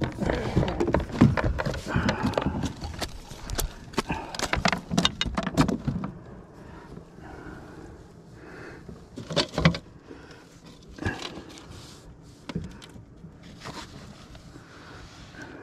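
Close handling noise as a landed bass is unhooked in a landing net: a rapid run of knocks, rubs and rustles for about six seconds, then quieter, scattered knocks as the fish is laid on a plastic measuring board.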